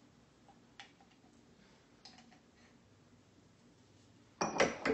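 Faint scattered clicks of a plastic measuring spoon scooping ghee from its jar. Near the end, a sudden loud run of rapid sharp taps starts as the spoon is knocked against the blender jar.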